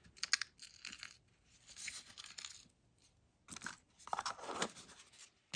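Hands handling jewelry and a small cardboard gift box on a tabletop: a few short rustles and light clicks, spread out, with a cluster near the end.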